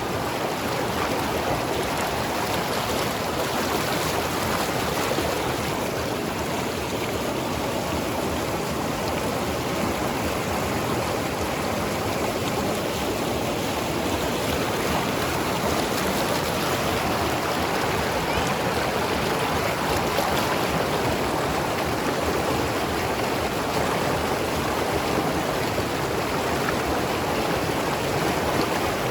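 Mountain river flowing and tumbling over rocks, a steady rushing and gurgling of water.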